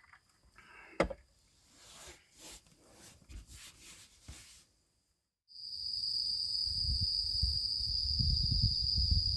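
Insects trilling steadily in a continuous high-pitched tone. In the first half there are light rustles and one sharp click about a second in. After a brief gap about five seconds in, the trilling comes back louder over a low, uneven rumble.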